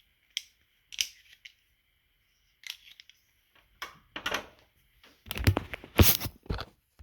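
Handling noise: a few light, sharp clicks, then louder knocks and rubbing from about four seconds in, the loudest about six seconds in.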